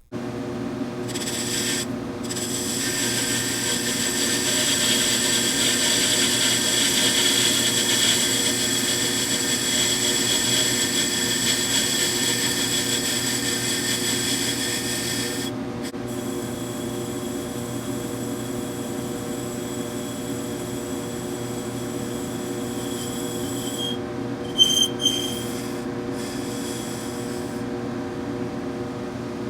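A powered machine tool runs steadily while cutting metal, with a steady whine and a cutting hiss. The cutting noise is heavier for the first half and drops off suddenly about halfway through, and there are two brief squeals near the end.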